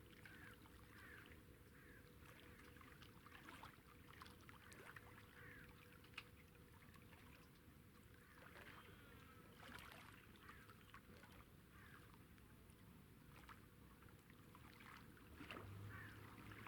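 Near silence: a faint low rumble of night ambience with many small, faint chirps and occasional soft clicks.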